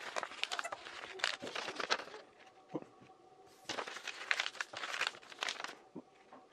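Sheets of paper being folded and creased by hand into a tube, crinkling and rustling in two spells with a short lull a little past the middle.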